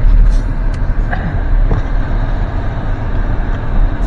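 A car rolling slowly, heard from inside the cabin: a steady low rumble with a few faint clicks.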